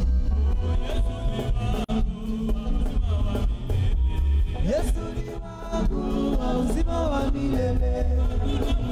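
Church choir and lead singers singing a gospel praise song into microphones over a live band with a heavy bass beat; a lead voice swoops sharply upward about five seconds in.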